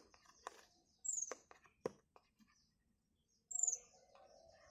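A bird's short high chirps, each falling in pitch, twice. Between them come a few sharp clicks and taps of fingers picking at the seal of a small cardboard box.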